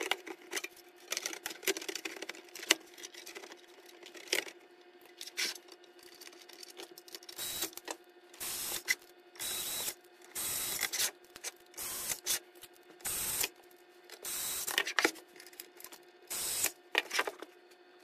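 Cordless electric screwdriver running in about a dozen short bursts on the screws of a metal LED light fixture's case, after clicks and rattles of hands working in the housing. A steady hum runs underneath.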